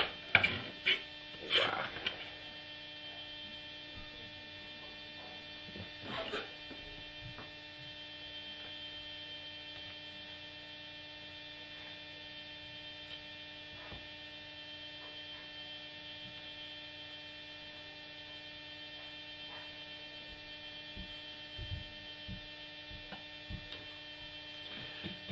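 Steady electrical mains hum with its overtones. A few sharp clicks and knocks in the first two seconds, and a couple more about six seconds in.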